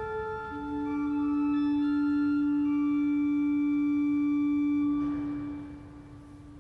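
Pipe organ holding a chord of high sustained notes, with a strong low note coming in about half a second in and held. Around five seconds in the notes are released and the sound dies away slowly in the church's long reverberation.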